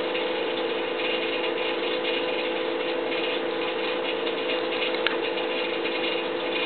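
Steady mechanical hum of unknown origin: two constant tones over an even whirring hiss with a fine, rapid ticking texture. A single faint click comes about five seconds in.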